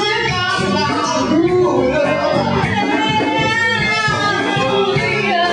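Swing band music with horns, playing continuously at a steady loudness.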